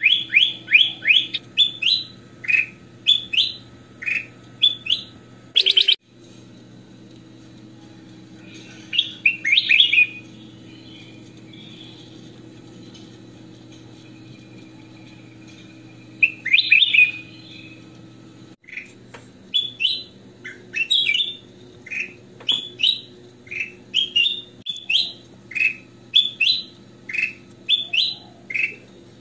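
Ruby-throated bulbul (kutilang emas) singing: quick runs of short, clear whistled notes that glide up and down. A pause of several seconds falls in the middle, then the song picks up again. A steady low hum runs underneath.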